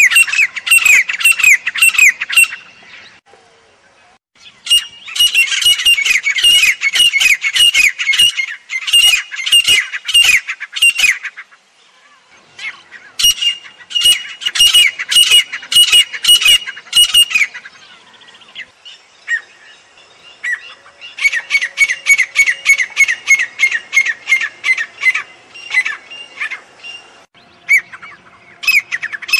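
Grey francolin calling: bouts of loud, harsh notes repeated rapidly, several a second. Each bout lasts a few seconds and is followed by a short pause, five bouts in all.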